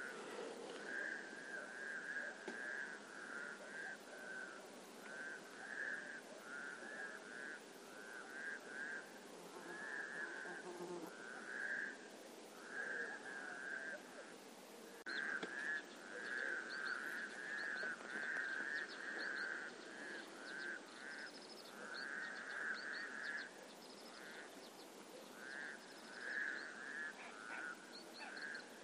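Frogs calling: short trilled croaks, each under a second, repeated in clusters over and over, with faint high chirps joining from about halfway.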